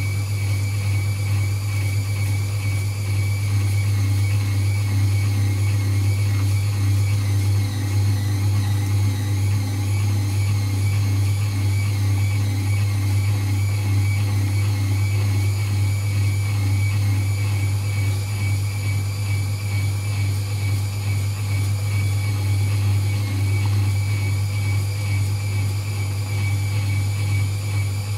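Motor-driven meat grinder running steadily as it grinds chocolate wafers: a constant low hum with a thin high whine above it.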